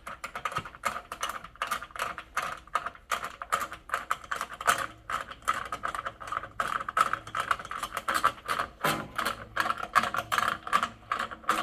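Rapid, steady clicking of a ratchet wrench tightening the bolt on a water heater earthquake strap, drawing the strap snug around the tank.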